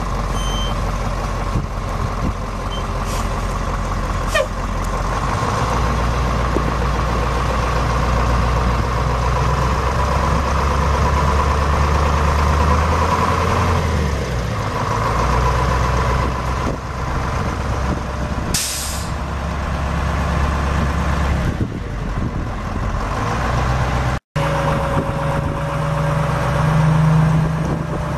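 The Ford F800 dump truck's Detroit Diesel 8.2L V8 diesel runs with a steady low drone that swells and eases a few times. About two-thirds of the way through comes a short hiss of released air from the air brakes. Near the end the sound breaks off for an instant and picks up again at a steadier, slightly higher engine note.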